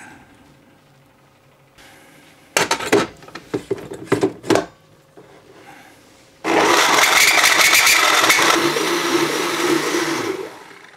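Clatter of the stainless steel jug and containers being handled and set down, then an electric blender runs for about four seconds with a steady loud whirr, its pitch dropping partway through, mixing the liquid boilie ingredients.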